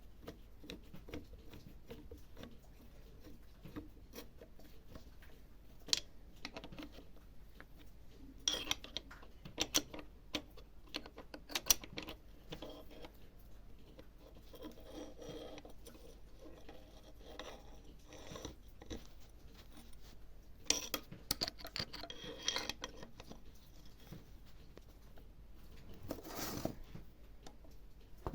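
Scattered clicks and light knocks of hand tools and small metal parts being handled, with a few sharper clinks in clusters.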